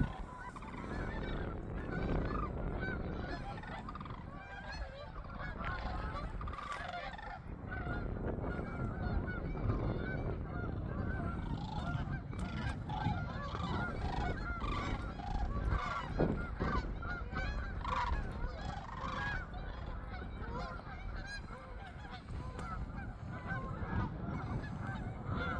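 A large flock of geese honking, many overlapping calls going on continuously.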